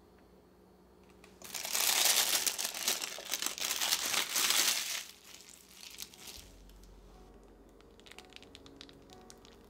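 Disposable plastic piping bag crinkling loudly for about three and a half seconds as it is handled and lifted out of a glass, then fainter scattered rustles and ticks.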